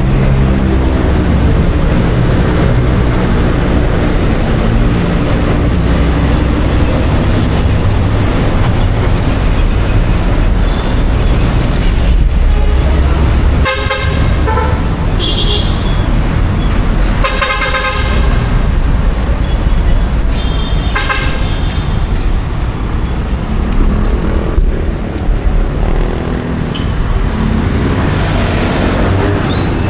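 Busy city street traffic: vehicle engines running in a steady rumble, with car horns honking three times about halfway through.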